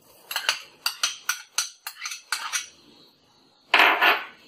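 Metal spoon clinking and scraping against a glass bowl in a quick run of about ten sharp taps as chopped onion is scraped out, then a louder double clatter of glassware near the end.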